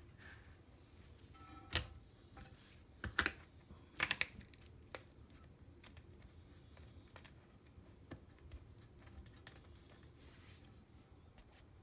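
Scattered light clicks and taps of hands fitting a rubber tank-to-bowl gasket over the flush valve nut on the underside of a porcelain toilet tank. The sharpest clicks come about two, three and four seconds in, the last a quick cluster, followed by fainter ticks.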